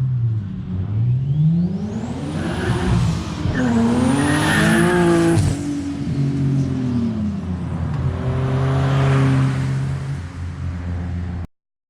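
A 500 hp Z car's engine under hard acceleration. The revs climb and drop repeatedly as it pulls through the gears, with a sharp drop in pitch about five and a half seconds in. The sound cuts off abruptly near the end.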